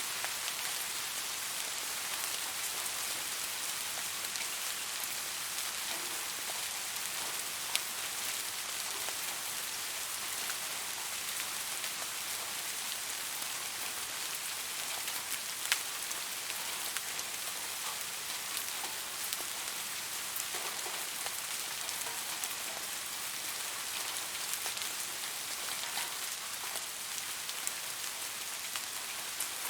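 Steady rain falling, an even hiss with scattered louder drops ticking on a surface, two of them sharper than the rest.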